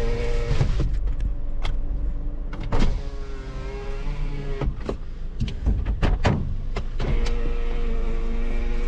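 Car on the move, heard from inside: a constant low engine and road rumble with a pitched drone that rises and falls in pitch and drops away twice, and a few sharp clicks and knocks.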